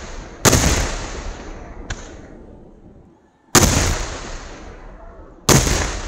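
Kerala temple fireworks (vedikkettu) shells exploding in the air: three heavy booms, about half a second, three and a half seconds and five and a half seconds in, with a lighter crack near two seconds. Each boom dies away slowly over a second or more.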